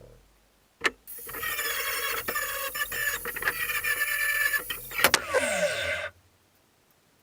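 Angle grinder cleaning up cut metal pieces: a steady high whine with grating for about five seconds, after a sharp knock. Near the end its pitch falls as it winds down, and it stops suddenly.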